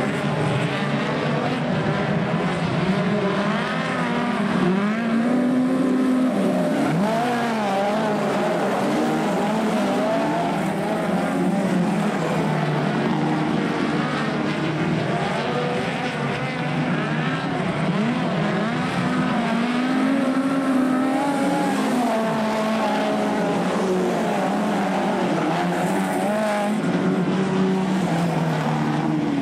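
Speedcars (midget racing cars) racing, several engines running at once with their pitch rising and falling as they rev and pass by.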